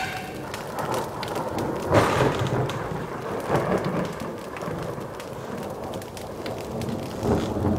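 Heavy rain falling steadily, with thunder rumbling and swelling a few times.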